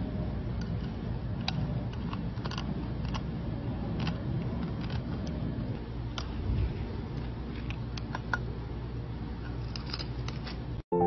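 Handheld stainless-steel perforated press and a metal blade working: scattered small clicks over a steady low rumble as the press is squeezed and the blade scrapes across its perforated face.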